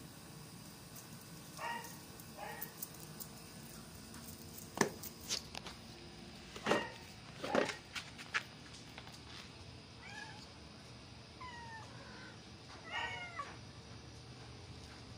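Cat meowing: two short meows about two seconds in, then several meows that bend up and down in pitch near the end. In between, a few sharp knocks, which are the loudest sounds.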